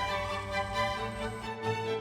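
Background music: sustained orchestral strings.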